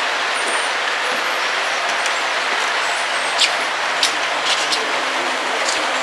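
Model railway train running on its track, a steady running hiss with a few sharp clicks in the second half.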